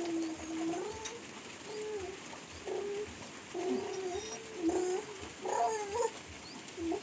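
A young girl crying softly: a string of drawn-out, wavering whimpers, one long one at the start and several shorter sobs after.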